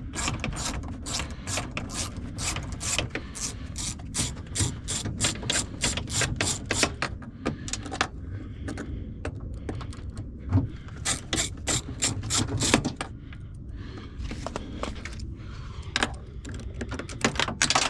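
Hand ratchet with an extension clicking in quick runs, about four clicks a second, as bolts are backed out. The clicking pauses about eight seconds in and again around thirteen seconds, then starts up briefly once more.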